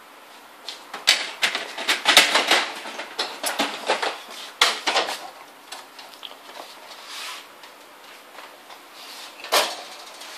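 Black plastic processor racks of a Fujifilm Frontier LP7500 minilab being lifted and handled in their tank housing: a quick run of clattering knocks and clicks, then one more sharp knock near the end.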